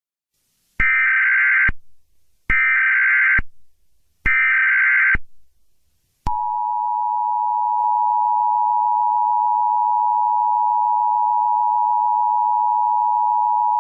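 Emergency Alert System tones: three bursts of SAME header data, each just under a second long, then the steady two-tone attention signal (853 and 960 Hz) starting about six seconds in.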